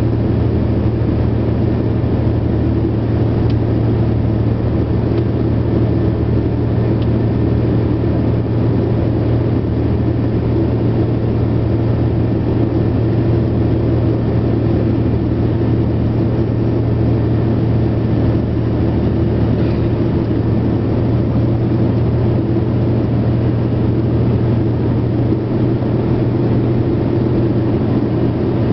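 Diesel-electric freight locomotive's engine running steadily, heard from inside the cab as the train rolls through a tunnel: a constant low drone.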